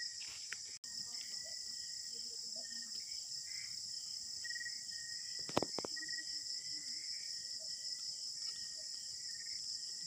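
Night chorus of insects: a steady shrill high drone with a rapid pulsing chirp lower down. A couple of sharp clicks come a little past halfway.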